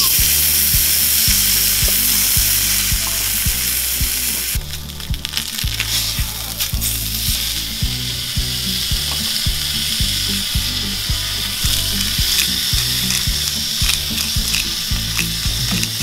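Beef steak searing in hot fat in a cast-iron skillet: a steady, loud sizzle with fine crackling and spitting. Low bass notes that change step by step run underneath.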